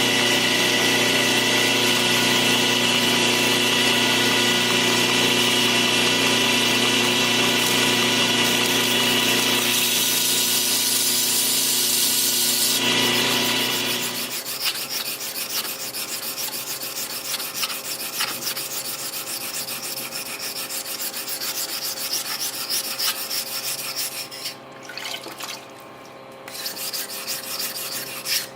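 An electric sharpening or grinding tool's motor runs steadily while a knife blade's edge is ground. It stops about fourteen seconds in, and quieter, rapid rubbing strokes of the blade follow.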